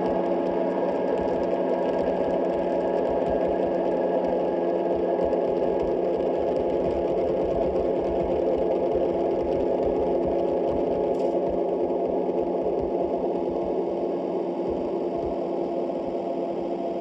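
Live noise music: a dense, steady drone of mid-pitched noise with several held tones layered in it, growing slightly quieter near the end.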